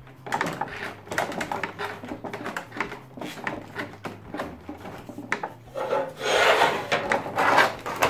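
Clear plastic blister packaging crinkling and crackling in the hands as the twist-wires holding an action figure's parts in the tray are untwisted, with many small clicks. About six seconds in the tray is shifted and rustles louder.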